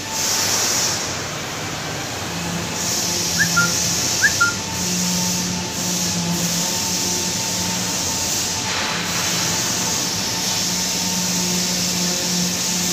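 Steady hum and hiss of factory machinery, the hiss swelling and fading, with two short high chirps about three and a half and four seconds in.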